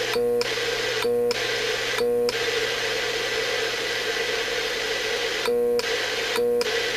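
ICOM IC-756 HF transceiver keyed on AM into a dummy load, giving a steady hiss broken by short buzzy beeps: three about a second apart at the start and two more near the end. This is the audio interference on transmit that is the radio's fault.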